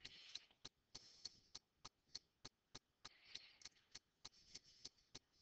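Near silence with faint, evenly spaced ticking, about three ticks a second.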